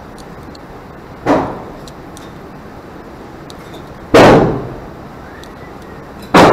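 Three single gunshots ring out in an indoor shooting range, fired from other lanes, each with a short echoing tail: a quieter one about a second in, then two louder ones a couple of seconds apart near the middle and at the end.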